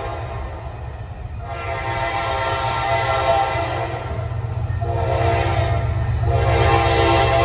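Multi-note air horn of a consist of four new ES30ACi diesel-electric locomotives sounding three blasts in a row, the first one long, over the low rumble of the engines. It grows louder as the train approaches.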